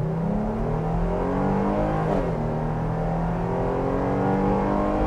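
A Jeep Grand Cherokee L's 3.6-litre V6 under full throttle from a standstill, heard from inside the cabin. The engine note climbs with revs, drops sharply at an automatic upshift about two seconds in, then climbs again.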